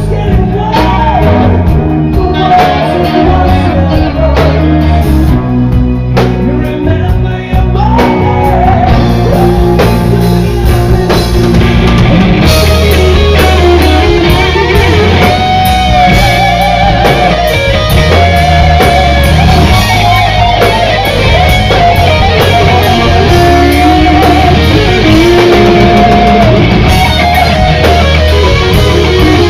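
Live rock band playing loud: electric guitar and singing over bass and drums. The sound fills out about twelve seconds in.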